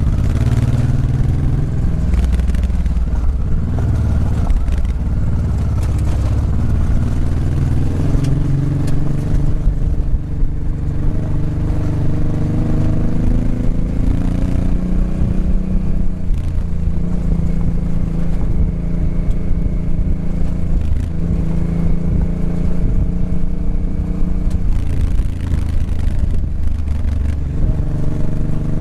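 Motorcycle engine running at low speed on a rough gravel track, its revs rising and falling as the rider works the throttle, with scattered knocks and rattles from the bike going over the stones.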